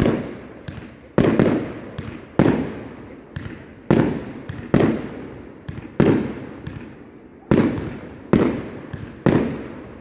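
Fireworks display: shells bursting one after another, about one bang a second, some louder and some smaller. Each bang is followed by a long echoing tail that fades away.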